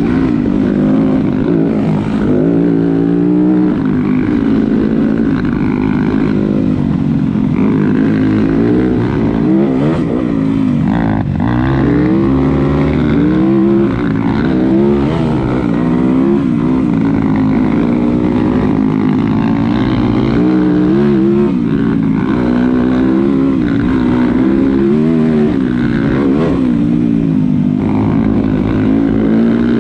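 Dirt bike engine running under way, its revs rising and falling over and over with the throttle and gear changes.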